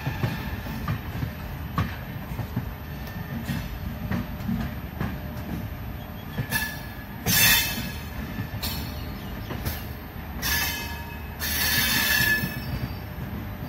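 Passenger train running on the rails, heard from the open coach door: a steady rumble of wheels on track, with several loud bursts of high wheel squeal in the second half, the loudest about halfway through and near the end.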